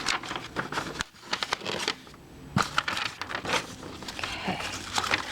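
Packaging rustling and crinkling in irregular bursts, with scattered light knocks, as items are handled and taken out of a box.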